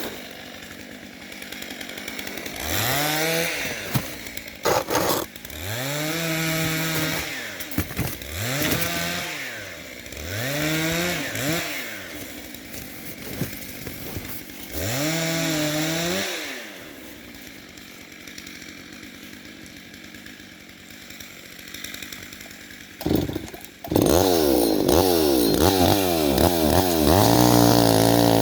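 Chainsaw idling and briefly revved about five times, then opened up to full throttle about 24 seconds in and held there, its pitch settling lower near the end as it goes into the cut.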